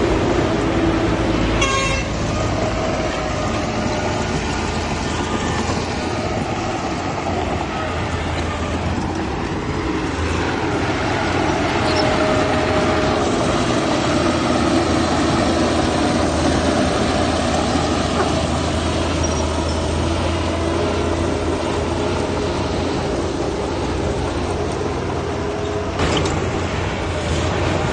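Diesel engines of heavy earthmoving machinery, a bulldozer and dump trucks, running steadily under load, with a short run of clicks about two seconds in.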